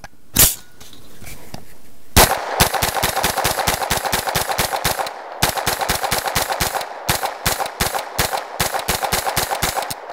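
Lone Wolf G9 9mm carbine firing 115-grain ammunition: one shot, then two long rapid strings of shots at about five a second with a short break between. It keeps cycling through the strings, running well even on the lighter 9mm load.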